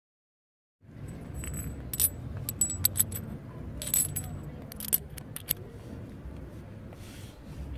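Sharp metal clinks and taps as a spark plug is handled against a steel tubular spark plug wrench, clustered about one to five seconds in, over a low steady background rumble.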